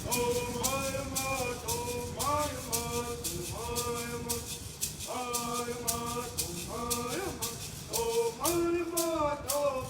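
Singing of a chant-like song in long held notes that slide between pitches, over a shaken rattle keeping a steady beat.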